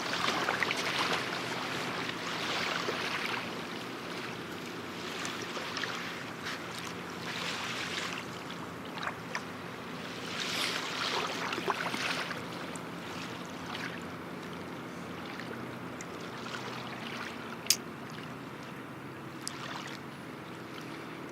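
Tugboat engine running with a steady low drone beneath a rushing, surging wash of water, with one sharp click near the end.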